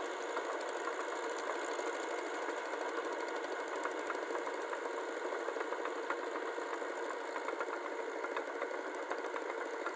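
Farm tractor's diesel engine running steadily under load while working a flooded paddy on steel tracks, with a fast, even ticking clatter.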